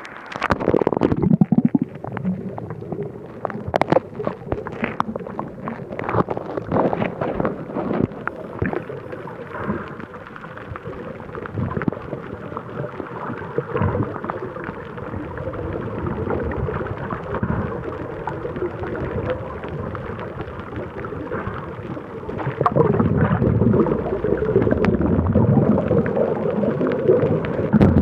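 Muffled water noise picked up by a camera held underwater while diving, with many clicks and knocks in the first ten seconds, a steadier wash in the middle, and louder low rumbling in the last six seconds.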